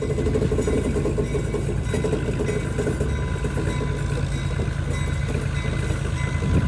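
Atlantic Coast Line diesel locomotive idling: a steady low engine rumble with a thin, even whine above it.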